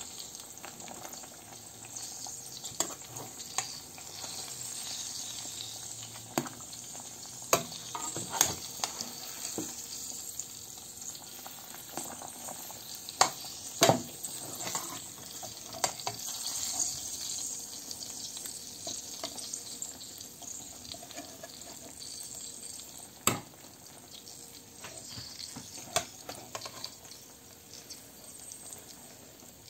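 Shrimp, fish and onion sizzling in a nonstick frying pan, with a metal spatula scraping and knocking against the pan now and then.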